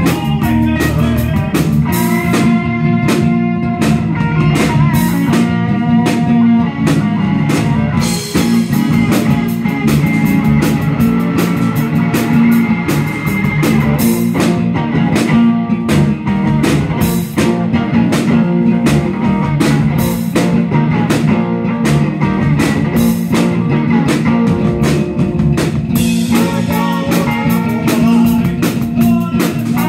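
A live rock band playing: electric bass, electric guitar and drum kit together, with steady drum hits under the guitar lines.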